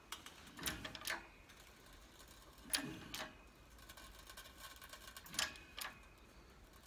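Hydraulic bottle jack of a 12-ton shop press being pumped: three faint pairs of metallic clicks about every two and a half seconds as the ram loads a wheel stud to push a lorry hub out of its brake drum.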